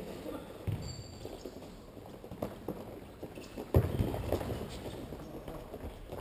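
Futsal play echoing in a sports hall: irregular player footsteps and scuffs on the court, a brief high squeak about a second in, and one sharp loud ball strike just before the four-second mark.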